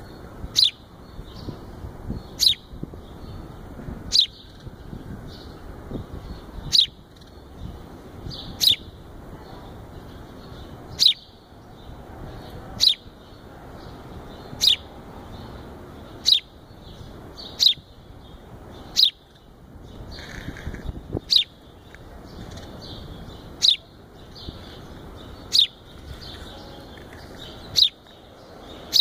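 Fledgling sparrow calling: a loud, sharp, high chirp repeated about every two seconds, each call dropping quickly in pitch.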